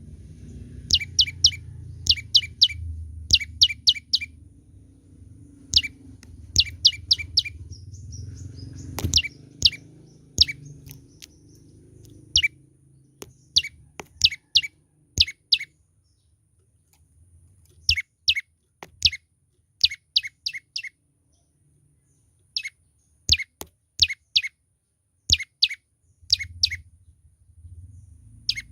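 Young prenjak lumut singing actively: quick bursts of three to five sharp, downward-sweeping chirps, repeated again and again with short pauses. A low rumble sits under the song for the first half and returns near the end.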